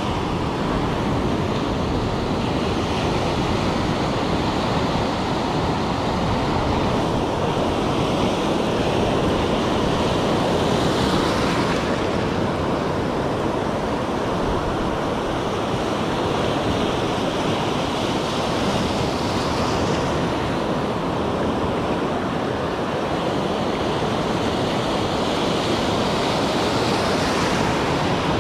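Sea surf breaking and washing over the shore as a continuous rushing noise, swelling louder with breaking waves about a third of the way in, two-thirds in and near the end. Wind buffets the microphone with a low rumble.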